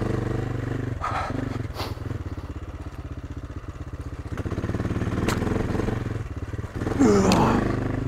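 An AJP PR7's single-cylinder engine running at low speed over a rocky dirt track, the throttle opened and closed so the engine note swells and dips. A few sharp knocks come from the bike crossing loose stones.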